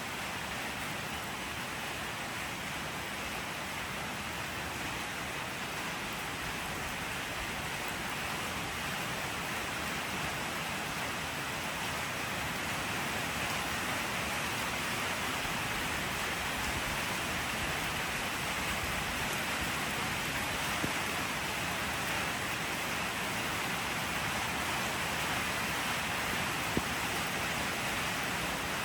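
Steady rain falling, an even hiss that grows slightly louder, with two faint ticks in the second half.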